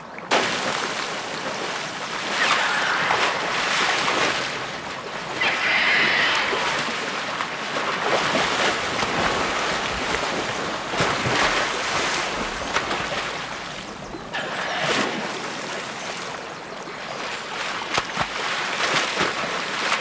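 Two dog otters fighting in a river: water splashing and churning in surges that swell and fade.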